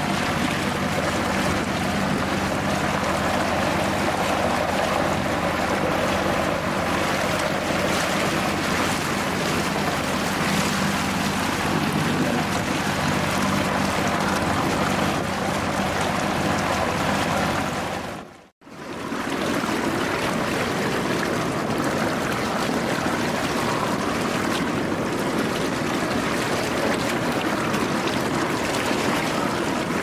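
Water rushing and churning past a Westsail 32 sailboat's stern and rudder at about 5 knots, with a low steady hum from the boat's engine under it. The sound drops out briefly about two-thirds through, and the rushing water then continues without the hum.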